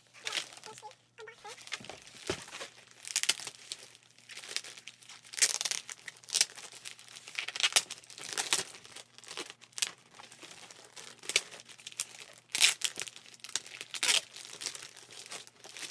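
Large clear plastic bag crinkling and rustling in irregular bursts as it is handled and pulled around a packed item.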